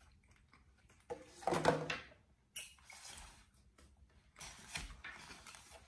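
A few short rustles and knocks from styrofoam takeout containers being handled on a table, the loudest about a second and a half in.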